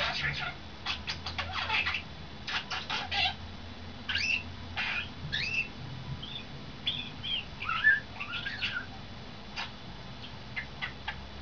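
Pet starling singing: a run of quick clicks and rattles, then a string of short whistled notes gliding up and down, the loudest about eight seconds in, and a few scattered clicks near the end.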